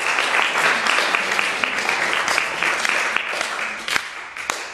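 Audience applauding, the clapping thinning out and fading toward the end, with a few last separate claps.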